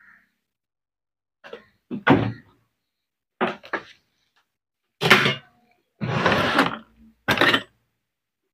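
Handling noise as electrical wires and a screwdriver are moved about on a workbench: a series of about six short scrapes and knocks, the longest lasting nearly a second, with silence between them.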